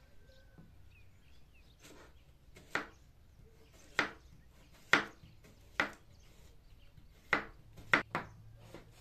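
Chef's knife slicing down through a halved onion and striking a wooden cutting board: about seven sharp knocks, roughly one a second, the last few coming quicker.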